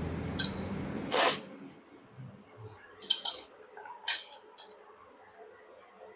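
Steel spoon scraping and clinking against a small steel bowl and plate while food is served, with a few sharp metallic clinks about three and four seconds in. A short rush of noise fills the first second.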